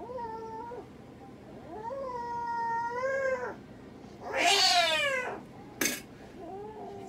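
A domestic cat meowing and yowling while held down for treatment: a short call, a longer call that rises then holds, a loud wail that falls in pitch about four seconds in, and a fainter call near the end. A single sharp click sounds just before the last call.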